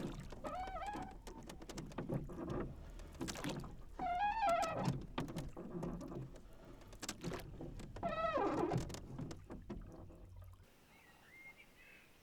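Sharp knocks and clunks of a small boat on the water, with three long, wavering wailing calls of about a second each at roughly two-second gaps. Everything cuts off abruptly near the end, leaving near quiet with one faint high call.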